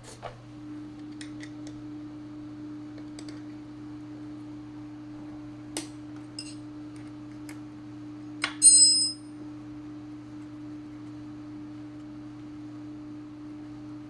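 Small metal clicks and taps as the scooter's rear-wheel bolts are undone with an Allen key. About eight and a half seconds in comes a loud, bright metallic clink that rings briefly, like a small steel part or tool striking something hard. A steady low hum runs underneath.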